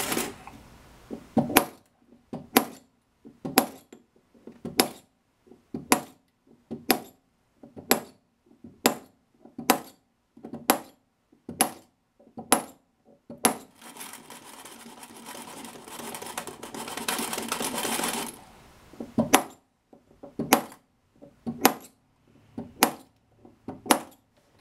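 Air rifle pellets being pushed one after another through a stainless steel pellet sizing die with a probe and dropping into a small metal tin underneath: a sharp metallic click about once a second. Midway, a few seconds of continuous scraping noise interrupt the clicks before they resume.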